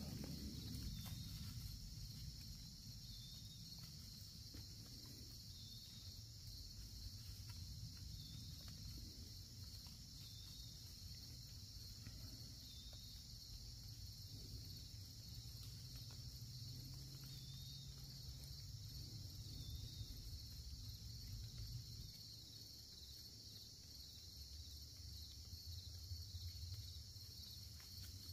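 Steady, faint chorus of insects chirping in the woods, over a low rumble.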